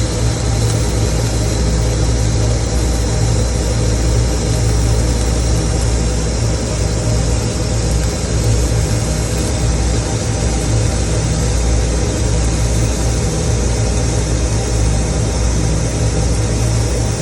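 Arc welding on a 3G vertical test plate: a steady crackling hiss from the arc, unbroken for the whole stretch, over a constant low hum.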